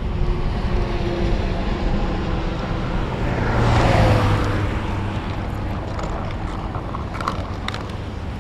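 Highway traffic and wind on the microphone, with a vehicle passing that swells and falls away about halfway through.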